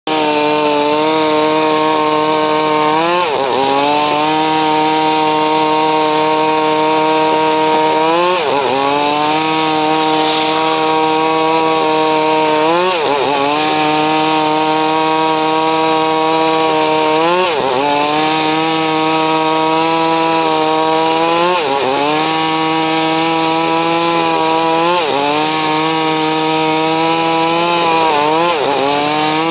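Homemade engine-driven sawmill running while it saws mahogany: a loud, steady machine tone whose pitch dips sharply and recovers about every four to five seconds, seven times.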